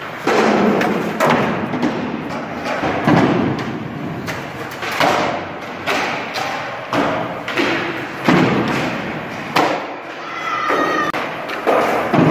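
Skateboards rolling on a hard gym floor, with repeated sharp board slaps and thuds from pops, landings and boards hitting the floor, echoing in a large hall. A brief high squeak about ten seconds in.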